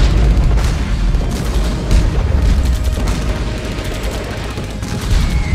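Animated battle sound effects: repeated rifle gunfire and cannon booms over a continuous low rumble.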